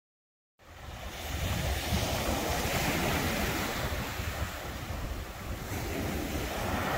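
Sea waves breaking on a sandy beach and washing up the shore, with wind buffeting the microphone. The sound starts about half a second in and swells and eases with the surf.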